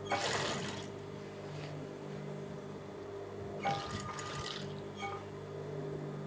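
Industrial sewing machine's motor humming steadily while pleats are folded into cotton cloth and sewn, with short bursts of stitching and cloth rustle at the start, about three and a half seconds in and again about five seconds in.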